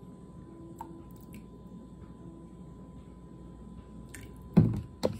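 A large plastic soy sauce bottle set down on a countertop with a heavy thump near the end, followed half a second later by a lighter knock. Before that there are only faint clicks of a spoon at the bowl.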